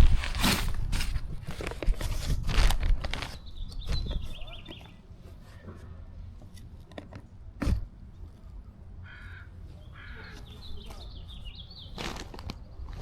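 Scraping and rustling handling noise for the first few seconds, then a single sharp knock about eight seconds in, with birds calling now and then in the background.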